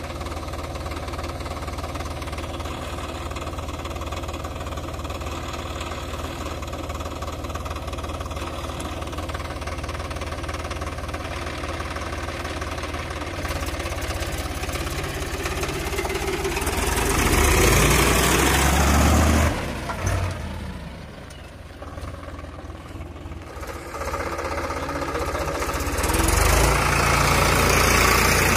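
Swaraj 735 FE tractor's three-cylinder diesel engine running at a steady pace, then growing much louder about halfway through as the tractor pulls up out of the pond. It drops back for a few seconds and picks up again near the end.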